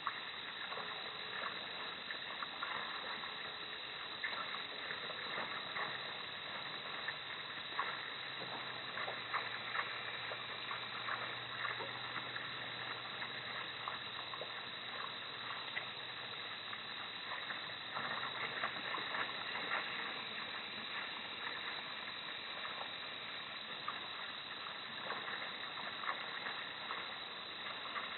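Steady outdoor night ambience picked up by an outdoor camera's microphone: an even hiss with faint steady high bands and scattered small crackles, and a faint low hum from about six to twenty seconds in.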